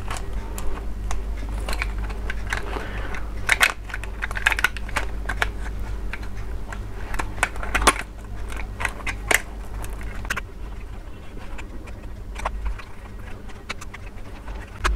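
Irregular plastic clicks, knocks and rattles as the black plastic legs and body of a jumping toy dog are handled and snapped back together during reassembly, over a low steady hum.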